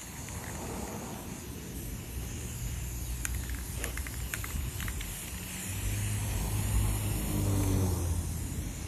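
A car engine running, louder between about six and eight seconds in, with a few short light clicks near the middle.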